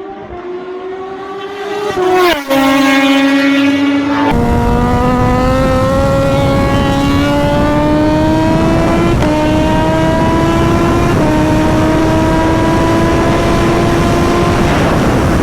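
Kawasaki Z H2's supercharged inline-four engine, fitted with an Orion aftermarket exhaust, under hard acceleration. The engine note climbs, drops sharply at a gear change about two seconds in, then climbs slowly and steadily in a high gear. From about four seconds in, heavy wind rush runs under it.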